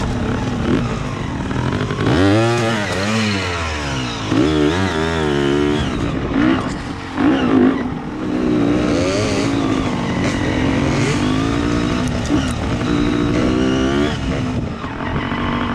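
Dirt bike engine being ridden, revving up and dropping back again and again, its pitch rising and falling every second or so.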